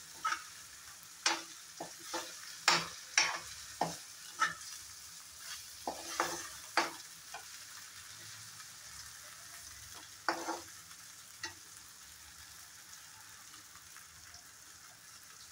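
Stainless steel spatula scraping and knocking against a black kadai as a bottle gourd and potato curry is stirred, over a faint steady sizzle of the curry frying. Quick strokes come through the first seven seconds and twice more a few seconds later, then only the sizzle is left.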